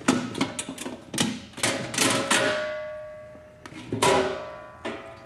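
Metal clanks and knocks as the clamp ring and lid of a steel drum fitted with an EXAIR Chip Trapper vacuum head are unfastened and handled. A quick run of knocks comes in the first two seconds or so. The drum rings after the strike about two and a half seconds in and after another about four seconds in.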